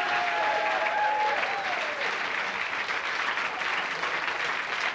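Comedy club audience applauding, with a few voices over the clapping in the first second or so; the clapping eases a little after about two seconds.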